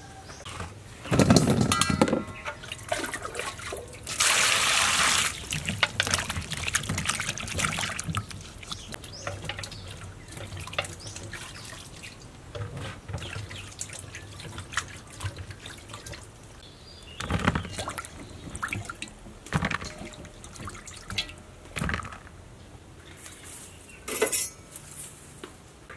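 Water splashing and pouring as raw pork and cucumber are washed by hand in plastic and steel basins. There is one steady pour of about a second a little after four seconds in, and knocks and clinks now and then.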